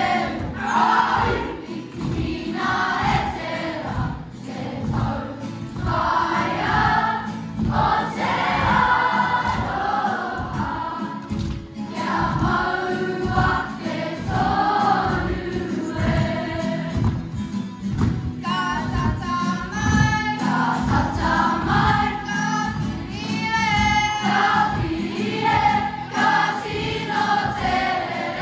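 Kapa haka group of girls singing a waiata together, many young voices in unison over a steady low pulse.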